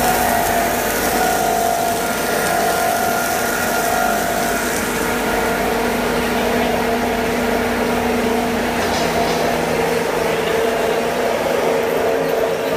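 Cheese-ball puff snack processing line running: a steady machine hum from its motor-driven drum and conveyors, with several steady tones in it.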